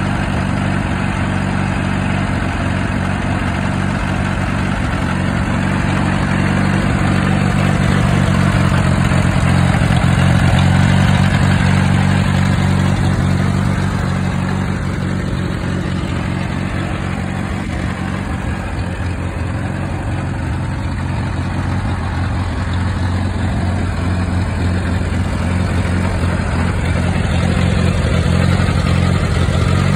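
Allis-Chalmers B tractor's four-cylinder engine idling steadily, a little louder for a few seconds about a third of the way in.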